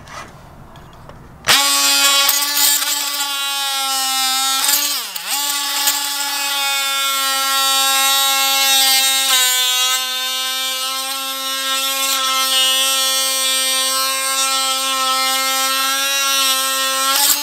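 Ryobi JobMax oscillating multi-tool with a plain scraper blade, scraping hardened epoxy squeeze-out off a teak toe rail joint. It starts abruptly about a second and a half in and runs with a steady buzzing tone. Its pitch dips briefly once around five seconds in, and it winds down with falling pitch at the end.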